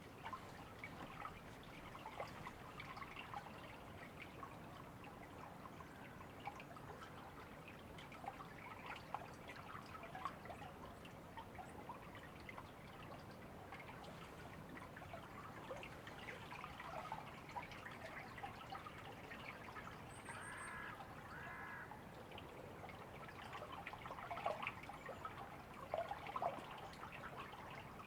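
River water trickling and splashing in a steady wash, with small splashes and drips throughout. A bird calls twice about two-thirds of the way in.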